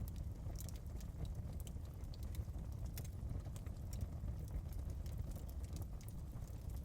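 Wood fire burning in a fireplace: a low steady rumble of flame with frequent small, sharp crackles and pops scattered irregularly throughout.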